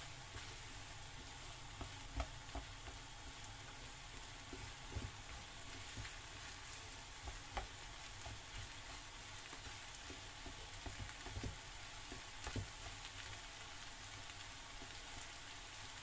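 Diced corned beef, potatoes, carrots and onion sautéing in oil in a frying pan: a faint, steady sizzle. Wooden chopsticks stir the mix, knocking against the pan a few times.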